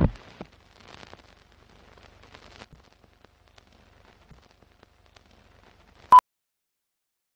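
Film-leader countdown sound effect: a loud burst dying away at the start, faint irregular crackling like old film, then a single short, loud, high beep about six seconds in, the sync beep that ends the countdown.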